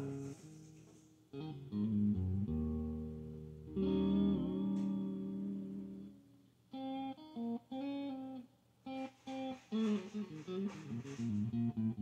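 Fender American Standard Stratocaster played clean through a Fender Deluxe Reverb amp at bedroom volume. Picked single notes and chords sound over a looped bass line.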